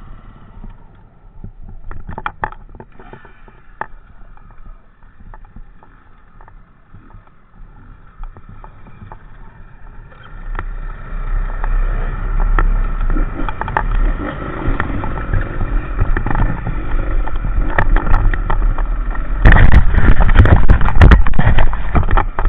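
Enduro motorcycle riding with a heavy low rumble of wind and rough ground on the microphone. It gets much louder about halfway through and loudest near the end, with many short knocks throughout.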